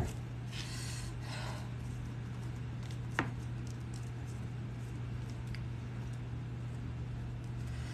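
Quiet handling of the leather piece and its rivet hardware: faint rustling, then one sharp click about three seconds in and a lighter tick later, over a steady low hum.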